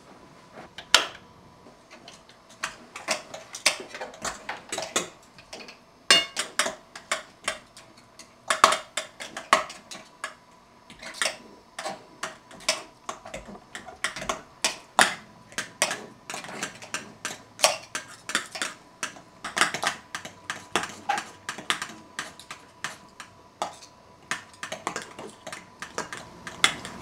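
Cutlery clinking and scraping on plates and dishes: a long, irregular run of small sharp clicks and clinks, several a second, with no talk.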